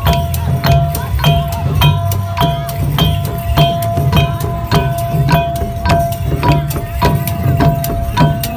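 Khmer chhay-yam ensemble playing: long goblet drums (skor chhay-yam) beating with small hand cymbals (chhing) clinking in a fast, even processional rhythm, about three strokes a second, the cymbals ringing after each stroke.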